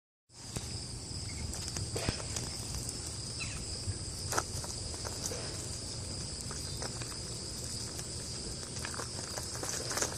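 Steady high-pitched drone of insects, with scattered light clicks and rustles of dry peanut shells as chipmunks pick through a bowl of peanuts.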